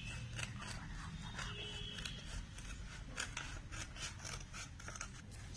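Scissors cutting through a sheet of stiff green paper: a steady run of short snips, about three or four a second.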